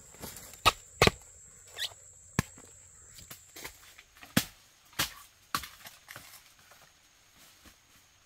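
Chopping at bamboo: a run of sharp knocks, irregular and about one or two a second, that fade out after about six seconds.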